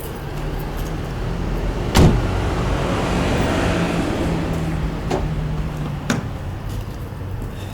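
Car's electric power window motor humming steadily for about six seconds as it runs, with a sharp click about two seconds in. It stops with a click about six seconds in; outside noise grows louder while it runs.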